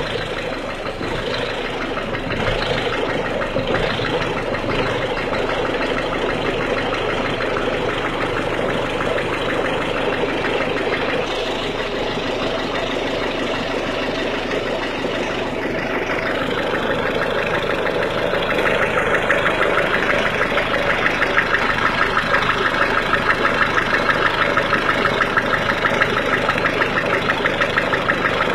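Peugeot/Citroën 1.6 HDi four-cylinder turbodiesel engine idling with a steady clatter (claquement), the abnormal noise it makes when cold. About two-thirds of the way through, the clatter gets louder and more evenly rhythmic.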